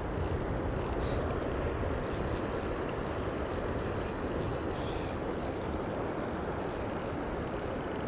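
Steady rush of river current.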